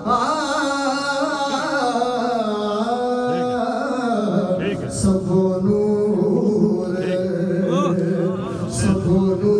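A man singing devotional Punjabi verse (kalam) into a handheld microphone, amplified, in long held notes with wavering ornaments and gliding runs.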